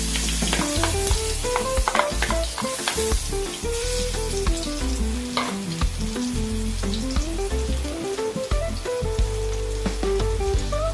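Chopped garlic sizzling in hot oil in a pan, a steady frying hiss. It is being stirred, with scattered clicks and scrapes of the utensil against the pan. A soft melody with a low bass plays underneath.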